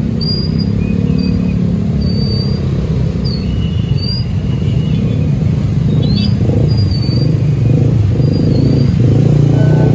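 A crowd of motorcycles and scooters running together in a loud, steady low rumble as they pull away across a level crossing, growing a little louder near the end. Short high chirps come and go above it.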